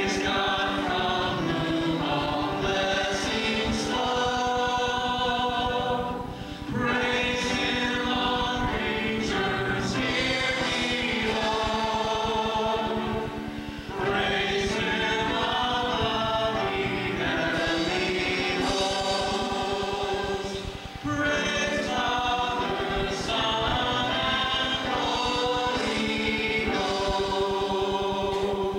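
Live worship band and congregation singing a praise song together, many voices over drums and keys, with a short break in the sound about every seven seconds between phrases.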